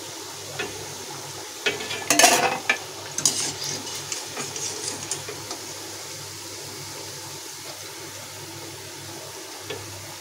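Mathri deep-frying in hot oil in a steel kadhai, a steady sizzle, while a wire skimmer scrapes and clinks against the pan and plate as the fried pieces are lifted out; the loudest clatter comes about two seconds in.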